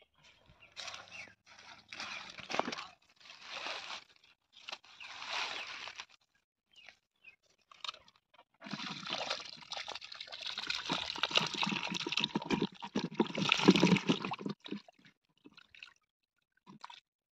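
Hands digging and scooping in wet mud and muddy water at a catfish hole. It comes in several short bursts over the first six seconds, then a longer, busier stretch of rapid wet strokes from about halfway in, loudest just before it stops.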